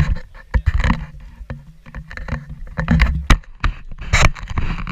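Handling and wind noise on a moving GoPro action camera: a low rumble of wind buffeting with a rapid, irregular string of knocks, thumps and rubbing.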